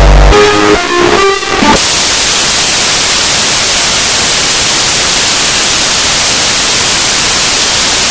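A short burst of loud electronic tones, then, about two seconds in, loud steady static like white noise.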